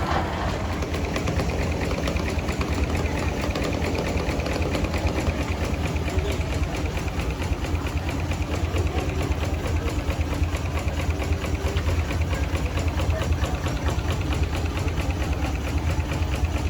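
1912 Case 40 hp steam traction engine running steadily under its governor, with a fast, even beat that holds constant throughout.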